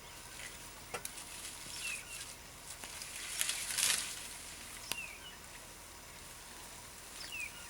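A bird repeating a short falling call every two to three seconds over quiet bush ambience. About three and a half seconds in comes a burst of rustling with a few sharp snaps, fitting elephants stripping leaves and twigs from a tree.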